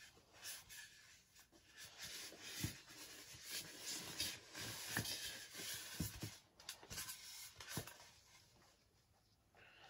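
Faint handling noises: rustling and scraping with scattered light knocks, dying down about two seconds before the end.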